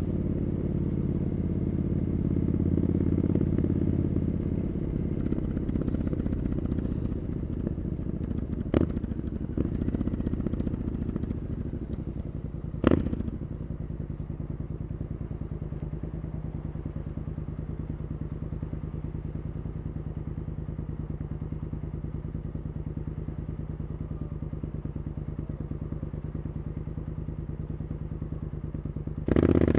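Triumph Scrambler 900's parallel-twin engine through an Arrow exhaust, its note falling off over the first dozen seconds, with two sharp knocks about nine and thirteen seconds in. It then holds a low, even note, like an idle, until the sound rises suddenly near the end as the throttle opens.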